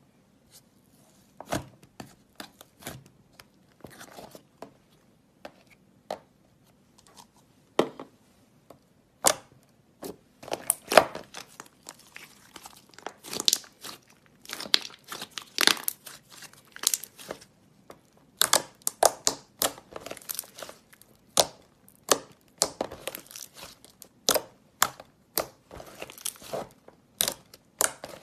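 Slime being poked, squeezed and stretched by hand, giving off a run of irregular sharp clicks and pops, sparse at first and coming thick and fast from about ten seconds in.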